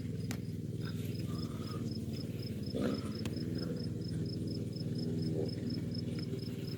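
A cricket chirping steadily, about three short, evenly spaced chirps a second at one high pitch, over a steady low motor-like drone, with a few sharp clicks.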